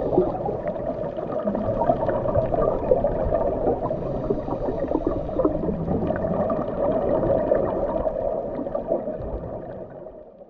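Underwater bubbling recorded while scuba diving: a dense, steady gurgle with many small pops, fading out near the end.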